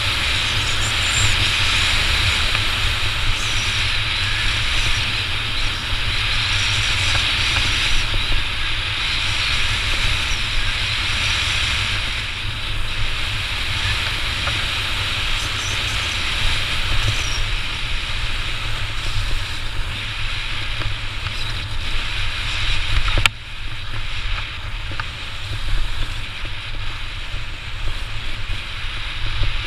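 Wind buffeting the microphone during a fast run down a steep ski slope, over a steady hiss of edges scraping on packed snow. The noise drops suddenly about three quarters of the way through.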